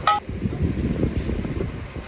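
A sharp metallic clink that rings briefly, followed by low, irregular knocking and rumbling of parts being handled.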